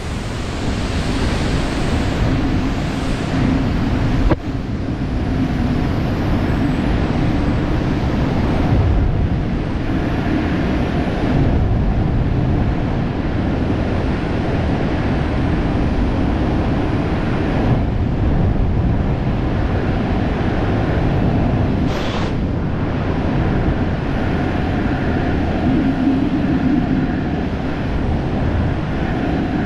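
Steady, loud rush of freefall wind buffeting the camera microphone during a tracking-suit skydive, with a single knock about four seconds in.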